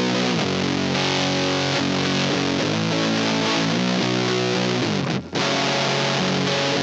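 Electric guitar with humbuckers played through the Anvil Audio Fuzz, a germanium fuzz pedal with its one knob fully up, giving a heavily distorted, sustaining tone as the chords change. The sound breaks off for an instant about five seconds in, then comes back.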